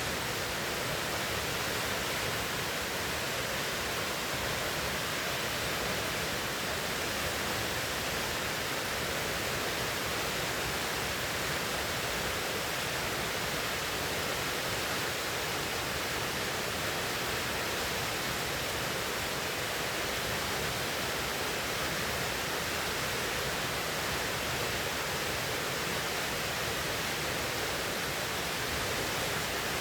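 River water rushing steadily: an even, unbroken hiss of flowing water that holds the same level throughout.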